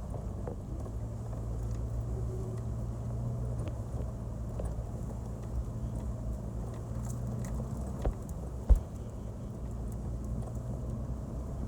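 Off-road 4x4 engine running steadily while the vehicle drives on an unpaved forest road, with small rattles and two knocks from the vehicle jolting over the track, the louder one near the end.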